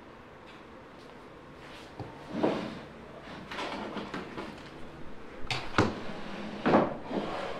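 A small wooden desk drawer being slid open and handled: wooden scraping and a series of sharp knocks, the loudest about two and a half, six and nearly seven seconds in.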